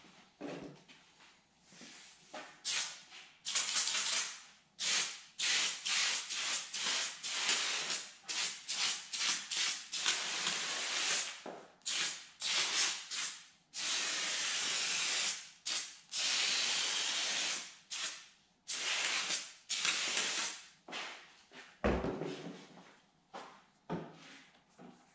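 Hose-fed spray gun spraying adhesive onto a wooden board in many hissing bursts, some short and a few lasting a second or two. A dull knock comes near the end.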